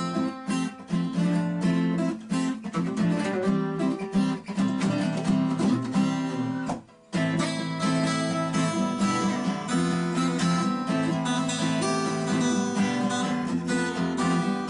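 Background music of strummed acoustic guitar, with a brief break about seven seconds in.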